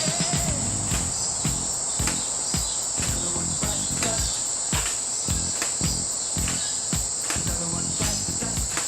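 A steady, high-pitched insect drone, like crickets or cicadas, with irregular low thumps and rumble under it.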